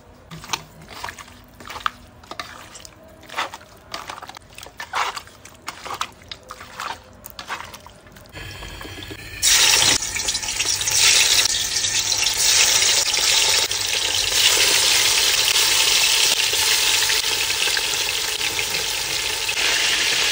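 A series of sharp knocks, about two a second, for the first eight seconds. Then, about nine seconds in, a tap is turned on and water runs hard and steadily into a sink or vessel until near the end.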